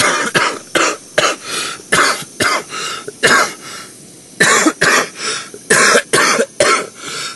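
A man coughing hard in two fits of many quick coughs, with a short pause about four seconds in.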